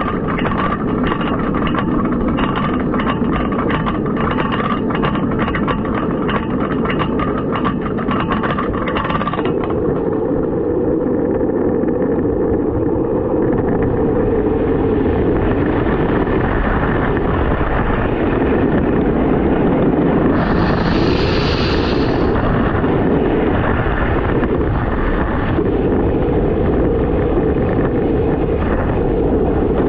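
GCI hybrid wooden roller coaster with Titan steel track, heard from the front car. At first a fast, even clacking, about three to four clicks a second, as the train crawls over the crest of the lift hill. Then, about a third of the way in, the train drops and runs at speed with a loud, steady rumble of wheels on track and rushing wind, and a brief louder hiss about two-thirds of the way through.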